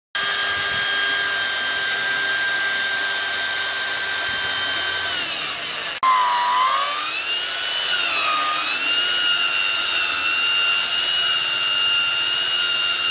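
Corded electric drill boring into a wooden knife handle. Its motor whine is steady at first and winds down near the middle, then starts again. The pitch dips and recovers as the bit bites into the wood, then settles to a steady whine.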